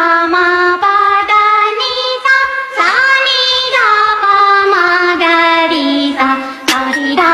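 Music: a high-pitched voice singing a melody that steps up and down from note to note.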